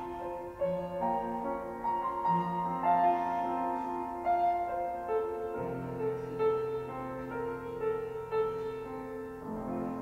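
Solo clarinet playing a slow hymn melody over piano accompaniment, settling into a long held note about halfway through.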